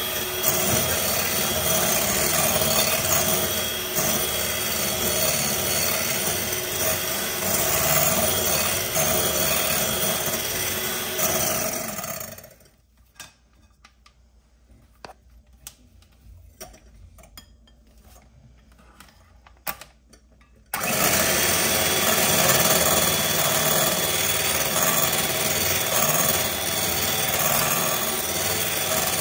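Bluesky electric hand mixer whipping egg whites into meringue foam with a steady whir. About 12 seconds in it winds down and stops, leaving a quiet stretch with a few light knocks. About 21 seconds in it switches back on abruptly and runs again.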